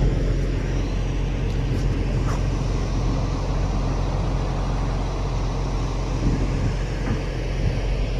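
Steady low hum and rumble of a ship's running machinery, even and unchanging.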